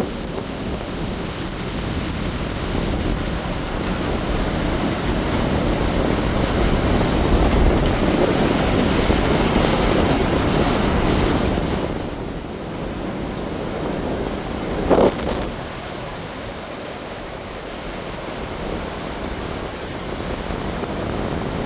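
Ocean surf rolling onto a beach: a steady wash of breaking waves that builds to its loudest through the middle and falls back about twelve seconds in, with wind rumbling on the microphone. A short, sharp sound cuts in about fifteen seconds in.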